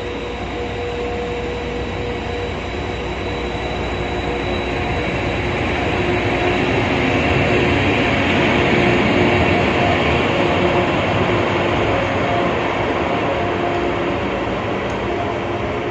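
A train running past on the line, its rumble swelling to a peak about halfway through and easing off toward the end, with faint steady humming tones over it.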